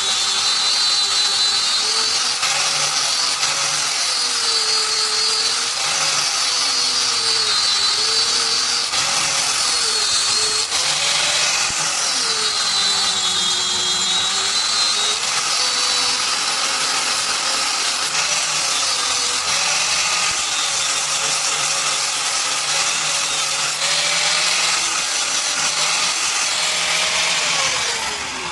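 Electric power tool running continuously under load, its motor pitch dipping and recovering every second or two as it is pressed into the work, over a steady hissing grind.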